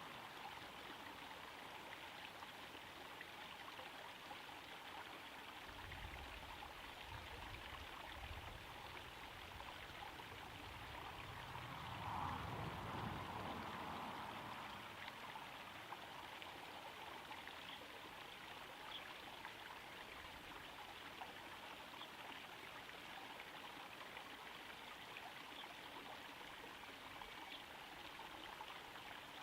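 Small garden pond waterfall trickling and splashing steadily into the pond. A low rumble joins it in the middle and swells loudest about twelve seconds in, then fades.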